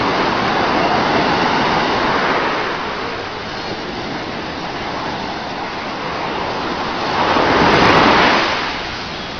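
Ocean surf breaking and washing up a sandy beach, with a wave swelling in loudest about eight seconds in before it eases off.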